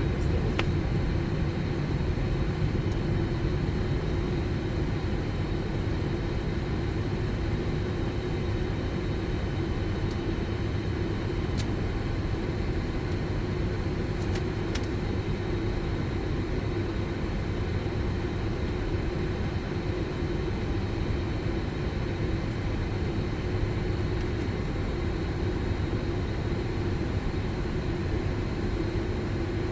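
Steady hum and rumble on a Boeing 747-400's flight deck while the aircraft holds on the runway with its engines at idle, under a constant droning tone. A few faint clicks come through midway.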